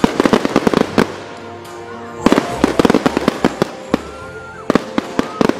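Aerial fireworks shells bursting in quick succession, with many sharp bangs and crackling.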